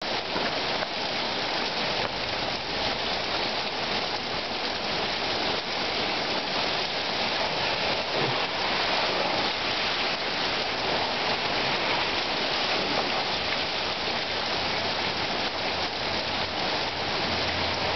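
Heavy rain pouring down in a thunderstorm downpour, a steady hiss with no break.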